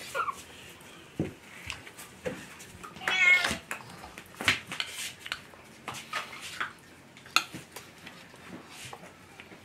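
A cat meowing, one clear drawn-out meow about three seconds in, with scattered light clicks and knocks around it.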